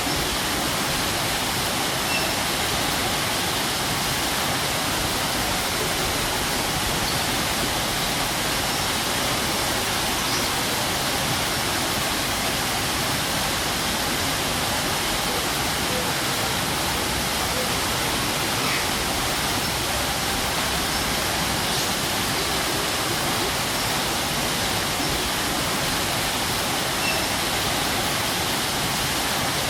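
Strong waterfall: water falling and crashing in a steady, dense rush.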